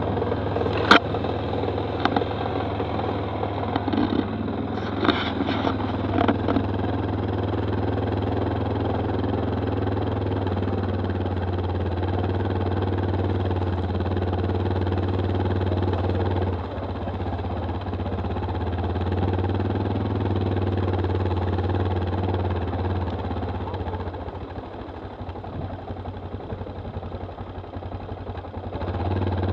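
Engine of a Stels 800D quad bike running during a ride: a steady low drone, with a few sharp knocks in the first several seconds. Near the end the engine eases off and runs quieter and less evenly for a few seconds, then picks up again.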